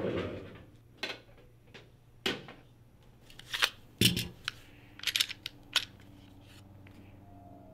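A handgun being handled on a glass counter: a series of sharp clicks and clacks, the loudest about four seconds in. A low steady hum comes in about halfway through.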